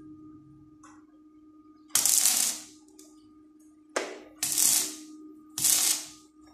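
Stick (arc) welding on a steel door frame: four short bursts of arc crackle, each under a second, as the electrode is struck and held briefly. A steady hum runs underneath.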